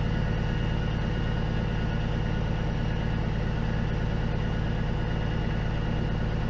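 Peterbilt 379's diesel engine idling steadily while its air compressor builds system pressure toward the governor's 120 psi cut-out.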